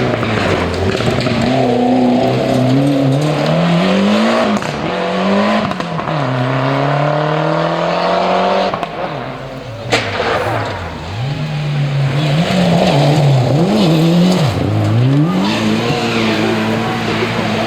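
Rally car engines at full throttle on a special stage, the pitch climbing through the gears in repeated rises with drops at each shift. The engine note falls back and revs hard again several times in the second half, with a sharp crack about ten seconds in.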